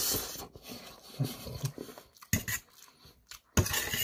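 Close-up chewing and mouth sounds of someone eating fried rice, then near the end a metal fork scraping and clinking against a metal plate.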